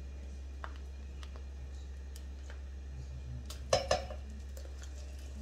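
A metal spoon clicking and scraping against a small plastic cup and the rim of a pot as a minced ingredient is tipped in: a few light clicks, then two sharp knocks close together near the end. A steady low hum runs underneath.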